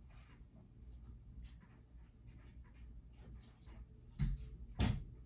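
Faint scratching and rubbing, with two short thumps a little after four and nearly five seconds in.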